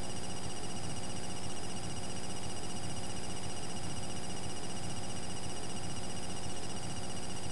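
Steady electronic buzz and hum with several high whistling tones that pulse rapidly, unchanging throughout.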